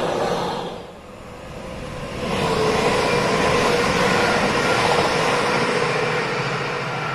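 The tail of a container freight train running past on rails, fading out within the first second. From about two seconds in, a Class 397 electric multiple unit passes: a steady rumble of wheels on rail with a faint steady tone over it, easing off a little near the end.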